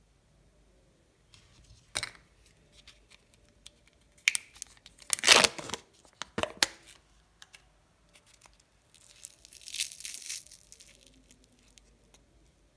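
Kinder Joy plastic egg half being opened: a sharp click, then a loud tearing and crinkling as its sealed lid is peeled back, followed a few seconds later by a stretch of crackling as the chocolate wafer balls inside are broken up.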